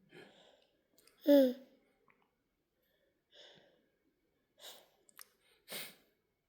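A toddler's short falling 'mm' hum about a second in while drinking milk from a bottle, followed by several soft breathy sighs.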